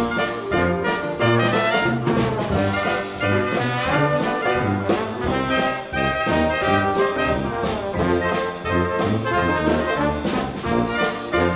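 Background music with brass, trombone and trumpet, played at a steady beat in a jazzy, swing-like style.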